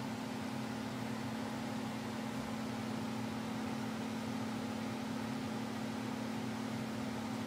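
Electric box fan running steadily: a constant low motor hum under the even whoosh of moving air.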